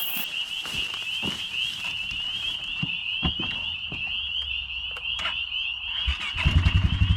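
Frogs trilling steadily in a high-pitched, rapidly pulsing chorus, with scattered clicks. About six and a half seconds in, an engine starts running with an even low putter and becomes the loudest sound.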